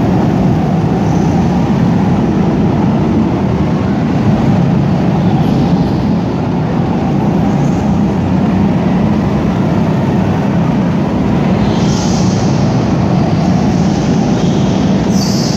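Several go-kart engines running together as karts lap an indoor track, a steady, loud engine drone filling a large hall. A couple of brief high squeals come near the end.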